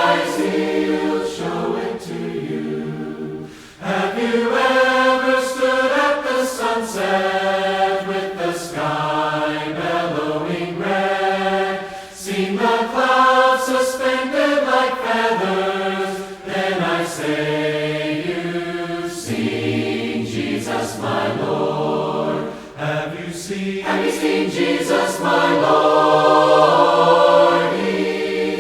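A cappella choir singing a hymn in harmony, holding long chords with no words made out.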